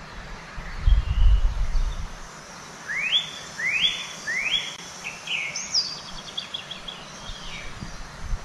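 A songbird singing: three rising whistled notes in a row, then a quick run of higher notes and a short trill. A low rumble about a second in is the loudest sound.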